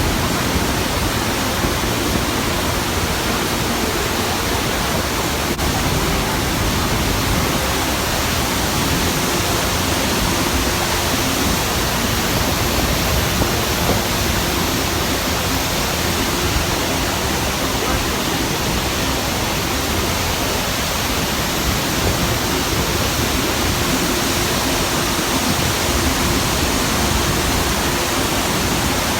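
Iguazú Falls: a large waterfall's masses of falling water, heard as a loud, steady rushing noise with no breaks.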